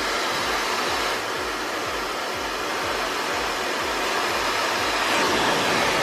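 Bopcal high-speed hair dryer running with a loud, steady rush of air, a little louder near the end.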